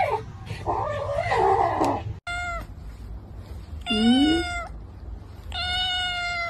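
A kitten meows three times: a short meow, then two longer ones, each a steady high note. Before them, in the first two seconds, a wavering cry slides up and down in pitch.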